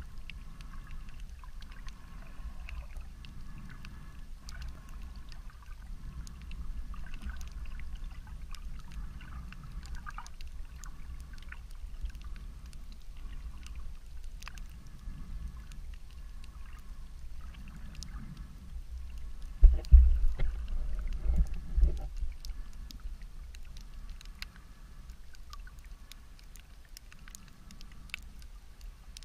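Underwater ambience picked up by a submerged camera over a shallow rocky reef: a steady low rumble of moving water with scattered faint clicks, and a short cluster of loud low bumps about twenty seconds in.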